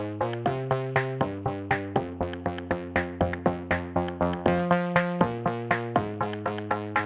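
Electronic background music: synthesizer chords over a quick, steady drum-machine beat.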